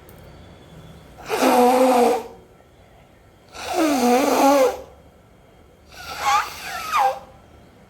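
A person sneezing loudly three times, about two seconds apart, each a drawn-out voiced sneeze of about a second; the last one comes in two pushes. Fits of sneezing like this are what sniffing sneezing powder brings on.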